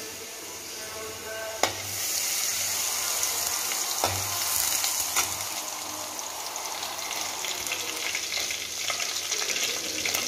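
Ginger-garlic paste frying in hot oil in a kadai, with a steady sizzle that grows louder about two seconds in. A few sharp knocks come as it is stirred.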